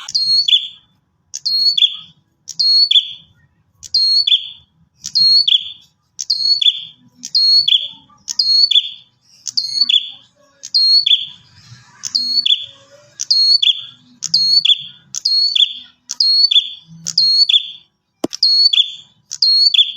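Prinia (prenjak) song: one two-part phrase repeated at a steady pace, about once every three-quarters of a second, a high sweeping note followed by a lower buzzy note. It breaks off briefly near the end with a single click, then carries on.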